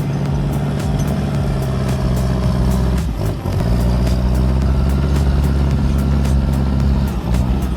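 Heavy-equipment diesel engine running steadily under load, with a brief change in its note about three seconds in.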